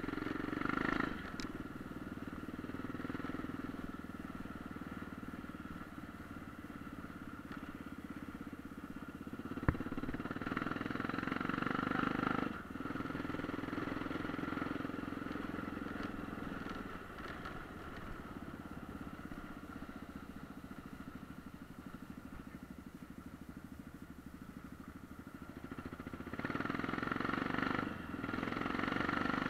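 Dirt bike engine running on the move, swelling and easing off several times as the throttle changes, with a brief dip about twelve seconds in. A single sharp click about ten seconds in.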